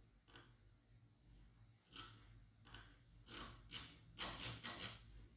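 Faint, scattered clicks of a computer mouse and keyboard, a few at first and more bunched together in the second half, as a value is typed into a web form.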